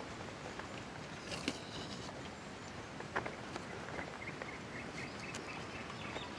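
Quiet outdoor ambience with faint bird chirps in the later part and a few soft clicks.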